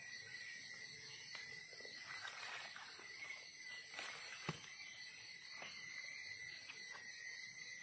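Steady chirring of forest insects, a constant high tone with hiss above it. Over it come a few short clicks and scrapes from digging in soil and leaf litter, the sharpest about four and a half seconds in.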